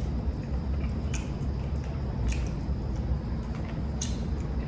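Shellfish being handled and picked apart by hand, king crab legs and lobster shell, with a few sharp clicks of shell and wet squishing of meat and sauce, over a steady low hum.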